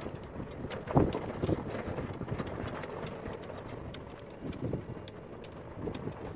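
Footsteps crunching on a gravel dirt track, with scattered small crackles of grit underfoot; the heaviest step lands about a second in.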